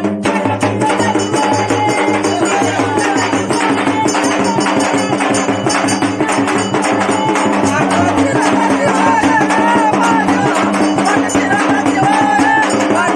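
Marathi folk devotional music with a steady drone under fast, dense percussion and a wavering melody line.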